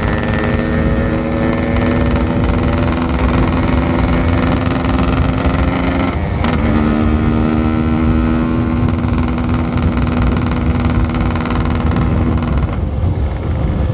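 Yamaha RX King 135cc single-cylinder two-stroke motorcycle engine running under way, its note holding and slowly sinking in pitch, breaking off briefly about six seconds in and picking up again, then dropping away near the end.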